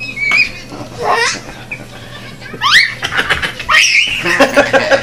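A person laughing in irregular bursts, with high rising squeals about two and a half seconds in.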